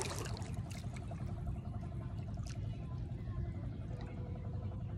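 Shallow sea water lapping and trickling, over a steady low rumble.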